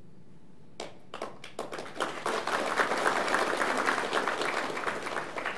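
Audience applause: a few scattered claps about a second in, building quickly into full clapping from many hands, then easing off near the end.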